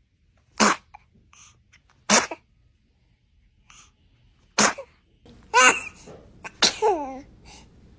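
A run of about five short, sudden sneezes, one after another, the last two trailing into a pitched, voice-like sound.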